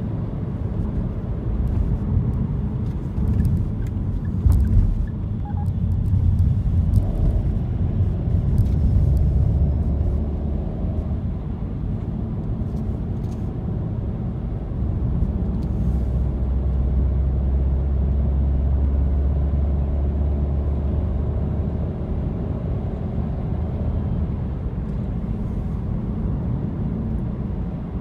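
Car driving on the road: a steady low rumble of engine and tyres that swells slightly at times.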